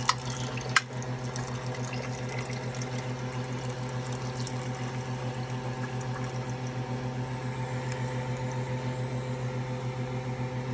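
A thin stream of liquid from canned corn pouring into a pot of soup, over a steady, regularly pulsing low hum. Two sharp clinks come at the very start and just under a second in.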